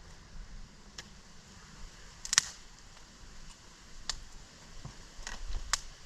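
Scattered sharp snaps and pops, about six over a few seconds at irregular spacing, the loudest a quick double snap a little over two seconds in, over a faint steady hiss.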